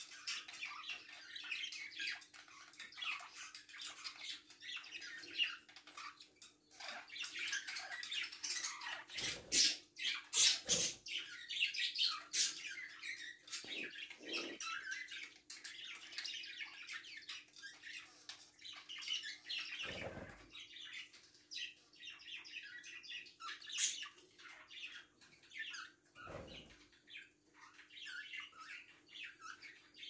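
Budgerigars chattering and warbling continuously in busy, high twittering calls, with several dull knocks scattered through.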